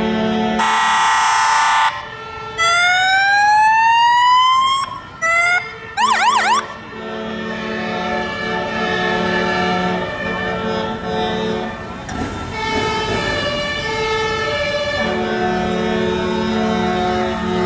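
Sirens of several fire and rescue vehicles in a convoy sounding together: two-tone sirens alternate hi-lo throughout, with a loud horn blast about a second in, rising wails a few seconds in, and a brief fast yelp around six seconds in.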